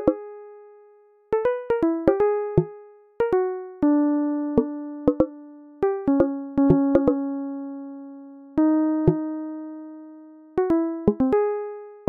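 Background music: a slow keyboard melody of single struck notes, each ringing out and fading, with a sharp click at the start of each note.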